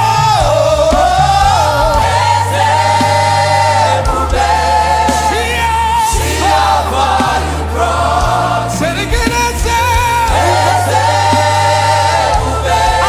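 Live gospel worship music: a choir and congregation singing together over a band, with held, wavering sung notes over a steady bass line and drum hits.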